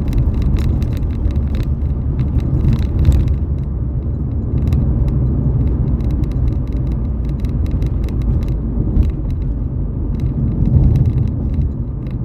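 Ford Fiesta EcoBoost on the move, its engine and road noise giving a steady low rumble, with frequent short clicks and rattles.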